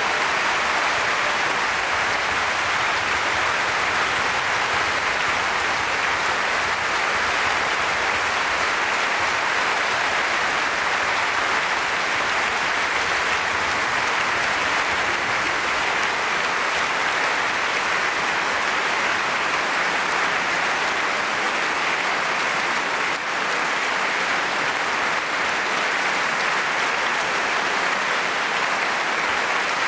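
Concert audience applauding: dense, steady clapping that holds at an even level.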